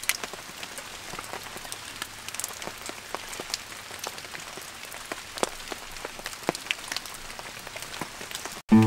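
Irregular small crackles and clicks of dry leaves and twigs being handled on the forest floor. Near the end, music cuts in abruptly.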